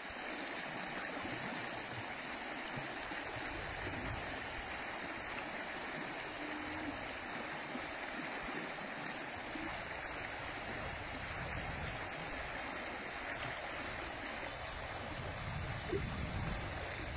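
Shallow mountain stream rushing and gurgling over rocks and stones in a steady, even flow, with a low rumble creeping in near the end.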